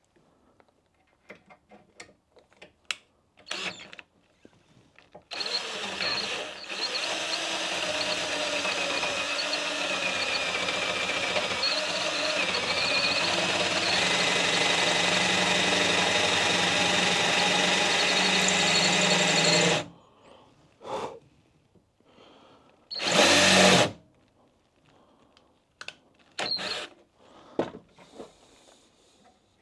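Cordless drill turning a homemade drill-rod counterbore, cutting a counterbore around a bolt hole in the flange of a metal casting. After some clicks of handling it runs steadily for about fourteen seconds with a brief dip near the start, then stops; a short loud burst follows about three seconds later.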